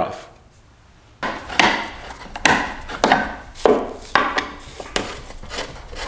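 Hard plastic side covers on a Minn Kota PowerDrive trolling motor mount being handled and worked loose by hand: a run of irregular scrapes, rubs and light knocks starting about a second in.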